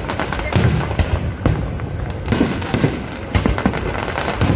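A fireworks display going off: sharp bangs about twice a second over continuous crackling and deep rumbling booms.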